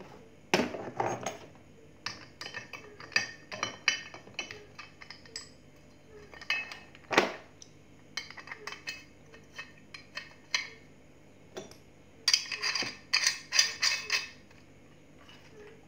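Metal and plastic parts of a hand-cranked meat grinder clinking and knocking as it is taken apart and the pieces are set down on a wooden table, with a denser run of rattling near the end.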